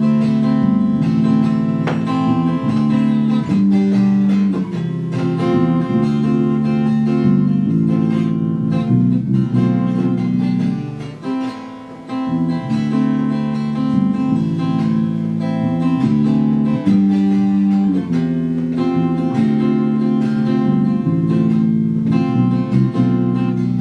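Acoustic guitar playing an instrumental passage of strummed and picked chords, with no singing.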